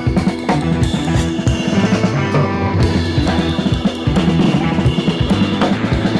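Background music: a rock-style track with drum kit and guitar, with a steady beat.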